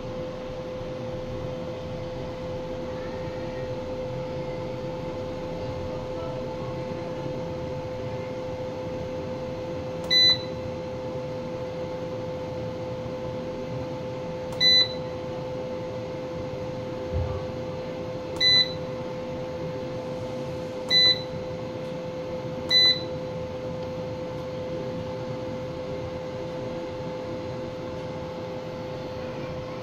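Keypad of a Fronus PV7200 solar inverter beeping five times as its buttons are pressed: short, high, identical beeps a few seconds apart, over a steady hum.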